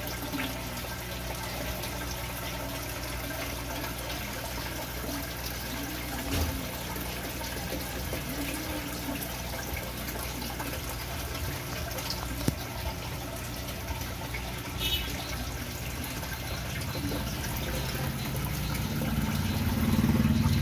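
Aquarium water bubbling and splashing steadily from air-driven sponge filters and airline tubes, over a steady low hum. A lower rumble swells near the end.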